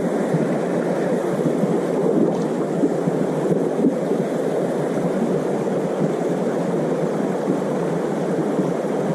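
Steady rushing of flowing river water: an even noise with no separate events.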